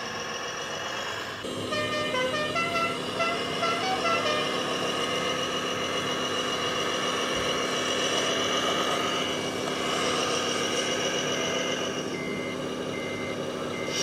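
Electronic sound module of a radio-controlled Volvo BM A25C 6x6 articulated dump truck model: a simulated diesel engine running steadily, growing louder about a second and a half in. At that point a quick run of short horn toots at changing pitches plays for about three seconds, and reversing beeps repeat evenly over the last couple of seconds.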